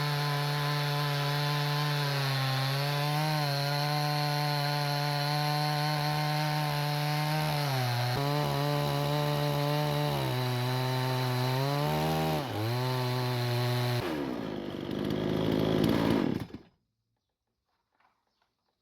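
Chainsaw on a small portable sawmill running at high speed while ripping a log into boards. Its engine note sags briefly a few times under load, then the sound cuts off abruptly near the end.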